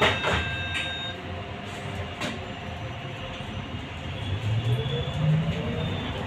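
Trolleybus running, heard from inside the cabin: steady running noise with a few clicks. A steady high tone cuts off about a second in. In the last two seconds the electric traction motor's whine rises in pitch as the bus picks up speed.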